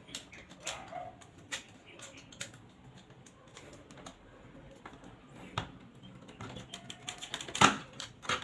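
Irregular small clicks and taps of hands working on electrical wire and a plastic outlet's screw terminals, with one sharper click near the end.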